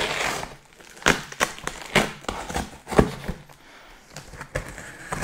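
Cardboard box being cut open with a small knife: packing tape slit and the cardboard scraping and crackling, with a few sharp taps about a second apart.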